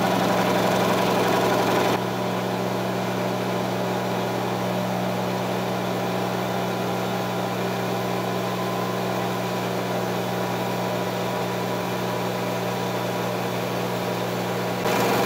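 Speedaire electric air compressor running steadily under load, its motor and pump filling the tank, with a steady low hum.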